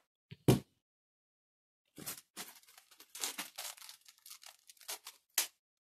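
Irregular rustling and small clicks of hands handling a bicycle derailleur cable and small parts, with a single click about half a second in and a sharper click near the end.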